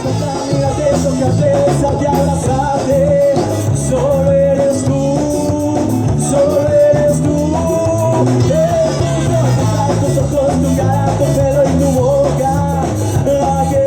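A ska band playing live, with a melody line over a steady, pulsing bass rhythm. The recording is loud and of poor quality.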